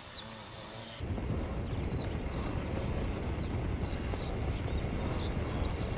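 Wildebeest herd on the move: a dense low rumble of many hooves trampling dry ground, starting about a second in. A short, high falling chirp repeats every couple of seconds over it.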